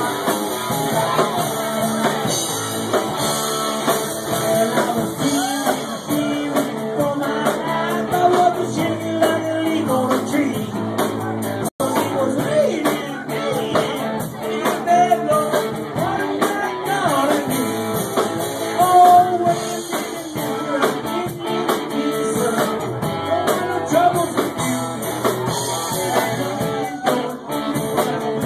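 Live rock band playing, with guitar, drums and singing. The sound drops out for an instant near the middle.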